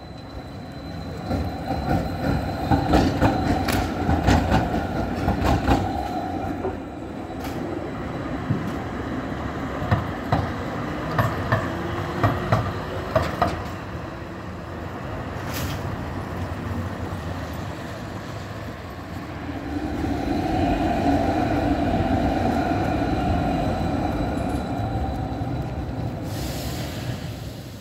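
Street trams running on city track. The wheels clack over rail joints and points in two runs of sharp clicks, a thin high whine sounds in the first few seconds, and a steady rolling hum swells near the end as a modern low-floor tram passes.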